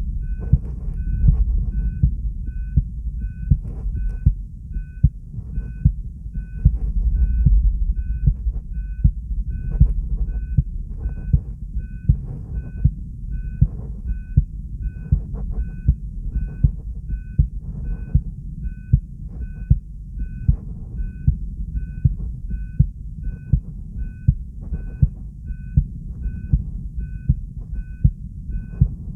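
Human heart sounds beating steadily and regularly at about 70 beats a minute, a normal rhythm, over a low rumble. A faint, even beeping pulses throughout, quicker than the heartbeat.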